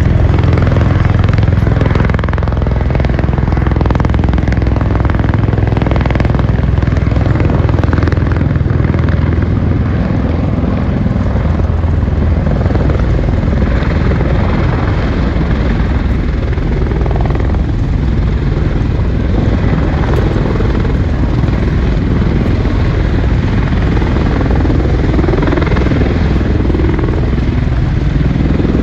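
Aircraft engine noise: a loud, steady rumble that holds without a break.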